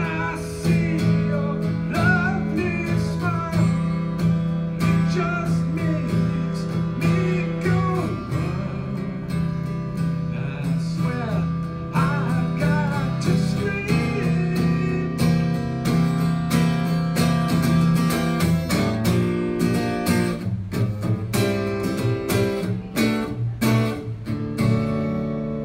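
Acoustic guitar strummed in a steady rhythm, with a man's wordless scat singing over it for roughly the first half; after that the guitar goes on alone.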